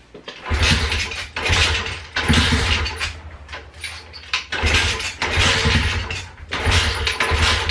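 Turbocharged Loncin pit bike's single-cylinder four-stroke engine being kick-started over and over: each kick brings a short burst of engine noise that dies away again instead of settling into an idle. The owner suspects an intake air leak is making it run poorly.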